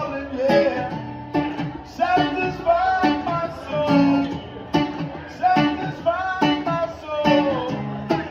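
Live music: a man singing over a strummed acoustic guitar.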